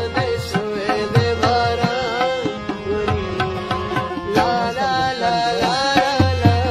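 Music: a melody that slides and wavers in pitch over repeated low drum strokes.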